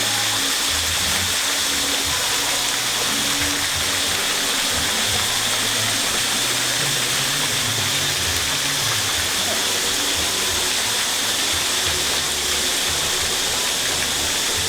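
Steady hiss with an even, unbroken level, with a faint low murmur beneath it.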